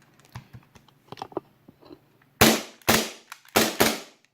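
WE M9 gas blowback airsoft pistol firing four shots in quick succession about two and a half seconds in, each a sharp crack with the slide cycling, after a few light handling clicks.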